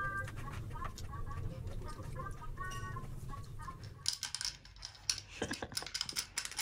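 A few short, faint high tones over a low hum, then after about four seconds a run of sharp clicks and rattles: dry dog food being worked into a red rubber feeding toy for a Shih Tzu.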